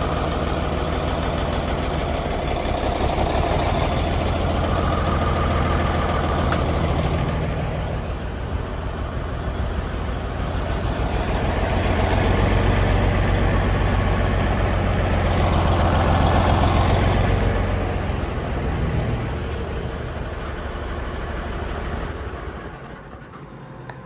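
Large stationary engine of an old sawmill's power unit running steadily. It swells louder around the middle and again about two-thirds through, then drops off noticeably near the end.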